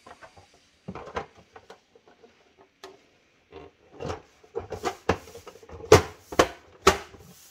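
Plastic housing panels of a Philips EP 2200 espresso machine being handled and fitted back on: a run of clicks, taps and knocks, growing busier in the second half, with the two loudest snaps about a second apart.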